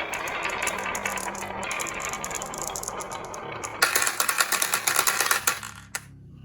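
Marbles rolling and clattering down a wooden marble run, a steady stream of rapid clicks that gets louder and busier about four seconds in, then stops suddenly just before the end.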